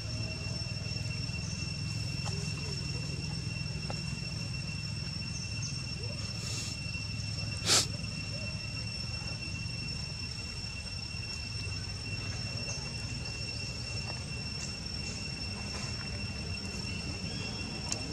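Steady high-pitched whine on two pitches over a low hum, with one sharp knock about eight seconds in.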